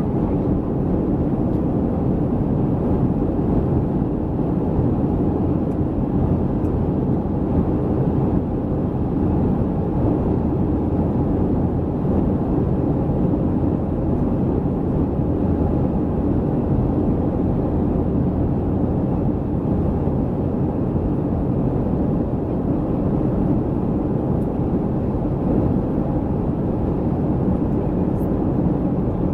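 Steady cabin noise of a Boeing 737-300 airliner in flight: the even, low rush of its CFM56 jet engines and the air streaming past the fuselage.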